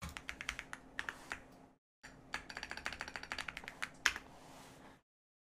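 Computer keyboard being typed on: two quick runs of keystrokes with a short pause between them, then one harder keystroke near the end as the command is entered.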